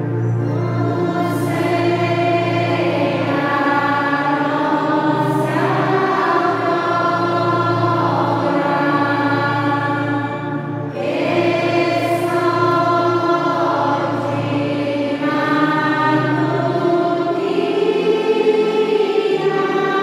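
Choir singing a slow hymn in long, held phrases.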